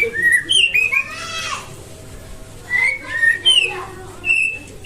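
White-rumped shama (Nias murai batu) singing: phrases of clear whistled notes sliding up and down, with a harsher buzzy note about a second in.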